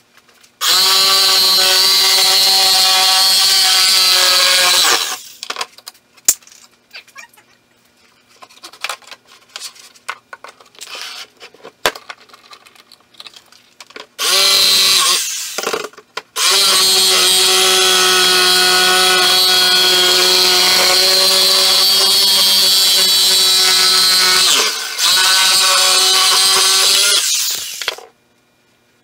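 Corded Ryobi jigsaw cutting round speaker holes in a plywood board. It runs at a steady whine with a rasping hiss in four long runs, the longest about eight seconds, with short stops and handling clicks between them.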